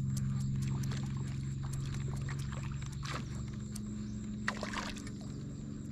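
A fish splashes at the surface, striking at a topwater lure, around three seconds in and again near five seconds; the angler takes it for a bicuda. A steady low hum and light water sounds run underneath.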